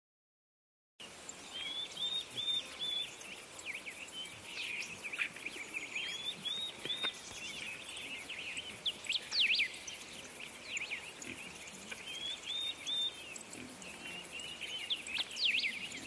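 Small birds singing and chirping outdoors: quick high notes and short repeated phrases, several songs overlapping, over a faint steady hiss. It starts about a second in, after silence.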